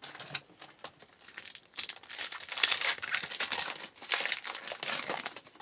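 Wrapper of a football trading card pack crinkling as it is torn open and handled: a dense crackle of many small crinkles that grows louder about two seconds in.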